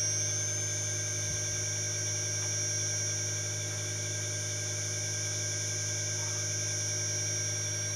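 Steady electrical hum with constant high-pitched whine tones, from the repaired 1 HP split inverter air conditioner running on test.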